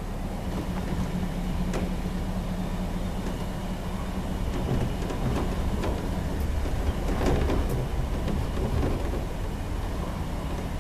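Car driving slowly: a steady low engine hum and road rumble, with a few light knocks and rattles partway through.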